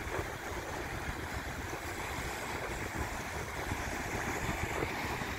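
Sea surf washing steadily against the shore, with wind buffeting the phone's microphone in a constant low rumble.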